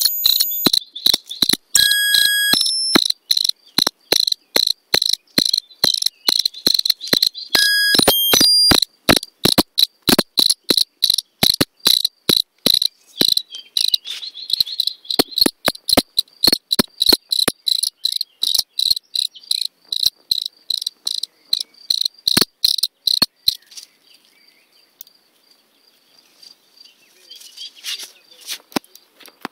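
Field cricket stridulating close to the microphone: a loud, high-pitched chirping, almost continuous for the first few seconds, then in regular chirps about two a second, stopping about three-quarters of the way through. Faint rustling of leaves follows near the end.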